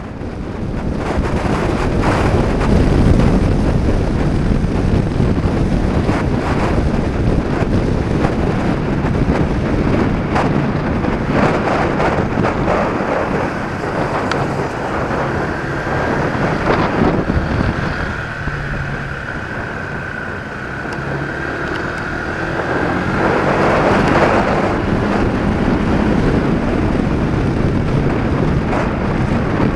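Wind buffeting an action camera's microphone on a moving Honda PCX 125 scooter, over its single-cylinder four-stroke engine running at road speed.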